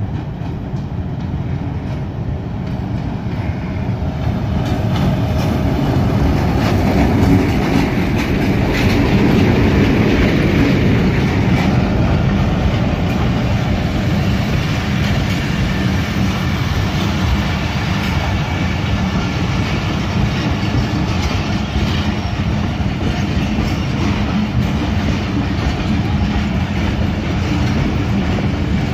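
Pakistan Railways diesel locomotive running through the station at speed, growing louder over the first several seconds as it approaches and passes. Its passenger coaches then roll steadily past close by, wheels clacking over the rail joints.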